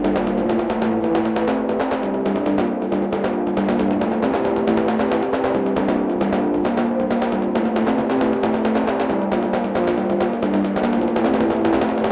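Background music: rapid, continuous drumming over sustained low notes that shift every second or so.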